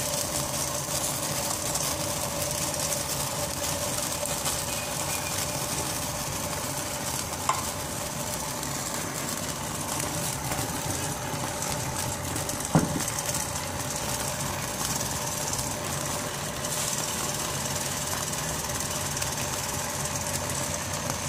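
Chopped garlic sizzling in hot oil in a frying pan: a steady frying hiss over a low steady hum, as the garlic fries for a tarka. Two short knocks come about seven and thirteen seconds in.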